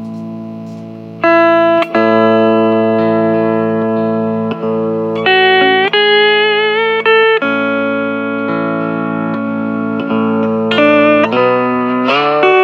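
Hawaiian steel guitar playing a slow melody in long held notes, sliding between pitches with vibrato, over a steady low backing of held chords. There are clear slides in pitch around six seconds in and again near the end.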